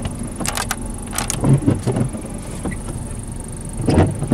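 Pickup plow truck's engine running steadily, heard inside the cab. A few sharp clicks come about a second in as the four-wheel-drive push-button is pressed, and there are heavier thuds later on.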